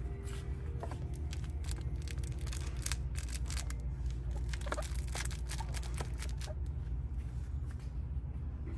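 Handling noise: a run of light clicks and rustles, with a small packaged toy being handled on a metal peg hook, over a steady low hum of store background. The clicks thin out after about six seconds.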